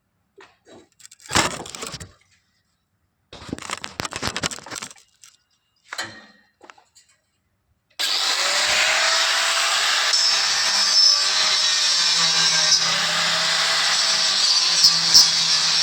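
Electric arc welding: a few short scrapes and taps of metal, then about halfway through the arc strikes and runs with a steady, loud crackling hiss and small pops.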